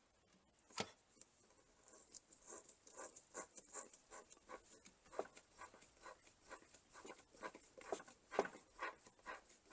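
A single sharp click about a second in, then a run of quick, irregular light taps and scratches from hand work on the drywall where the box mounts.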